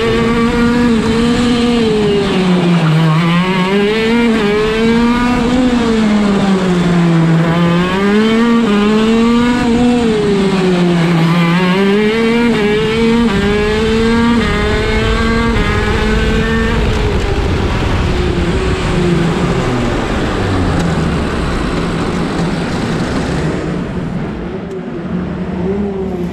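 125cc two-stroke KZ shifter kart engine (TM Racing KZ-R1) heard onboard at racing speed, its revs climbing and falling again and again through the corners. About two-thirds of the way in the revs drop away to a low, uneven running as the kart slows.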